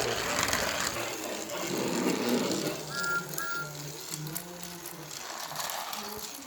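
Battery-powered talking Thomas toy engine running with its small motor whirring; about three seconds in its sound chip gives two short whistle toots, followed by a string of low electronic notes.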